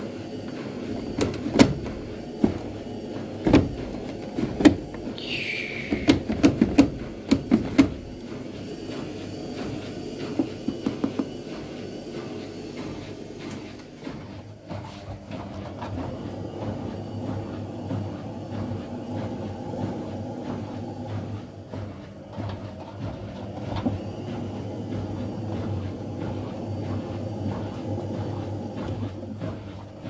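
Indesit WIL 85 front-loading washing machine: a run of clicks and knocks with a short falling squeal over the first eight seconds, then the drum motor running with a steady hum as the drum turns two wet towels.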